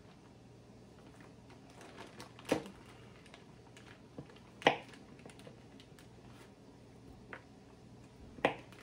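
Hard shea butter being cut into small chunks with a knife over a plastic container: three sharp clicks spread over several seconds, with fainter ticks between.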